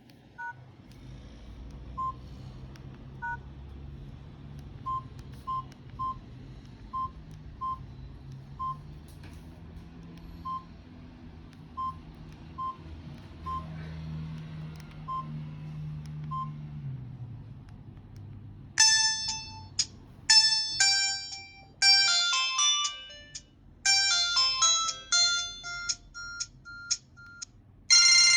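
Samsung SGH-C270 mobile phone: a string of short single key beeps at irregular intervals over a low steady hum, then, about 19 seconds in, a loud polyphonic ringtone melody starts playing from the phone's speaker.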